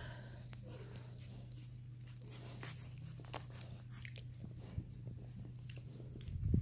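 Faint rustling and small clicks of a hand stroking young puppies' fur, over a steady low hum. A loud bump comes near the end.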